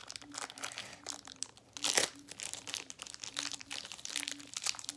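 Putty being dug and pried out of its plastic container by hand: irregular crinkling and crackling handling noise, with one sharper crack about two seconds in.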